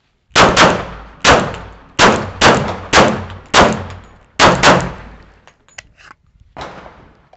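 Glock 21 .45 ACP pistol firing about nine shots in quick succession, several as rapid doubles, each bang with a short echoing tail. A single fainter bang comes near the end.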